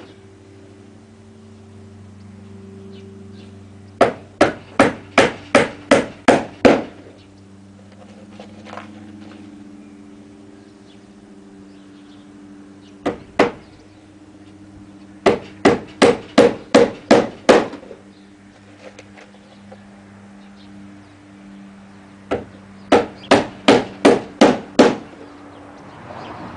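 Hammer driving nails into wooden ceiling framing: three runs of about eight quick blows each, the second and third each started by a single tap. A faint steady low hum runs underneath.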